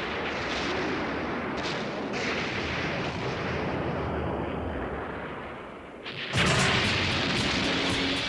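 Animated-series explosion sound effects: a sustained rumbling blast that slowly dies down, then a sudden louder explosion with crackling about six seconds in.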